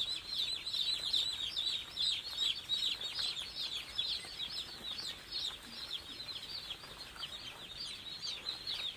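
Hundreds of day-old chicks peeping all at once in a brooder: a dense, continuous chorus of short, high, falling peeps.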